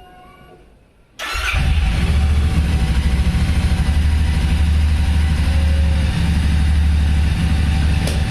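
Royal Enfield Continental GT 650's 648 cc parallel-twin, on its stock exhaust, firing up about a second in and settling into a steady idle. The bike is being jump-started from a separate battery because its own battery has gone flat from standing unused.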